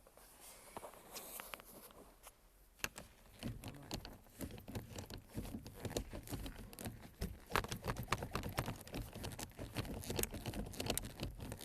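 Manual gear-shift lever of a Skoda Octavia Tour being rocked back and forth, its linkage giving many quick irregular clicks and knocks from about three seconds in. The lever's ball joint is freshly packed with graphite grease and no longer squeaks.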